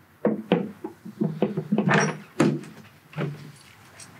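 A hard motorcycle saddlebag being fitted back onto the bike, heard as a series of irregular knocks and clicks of the bag, its lid and its mounting hardware. The loudest knock comes about two seconds in.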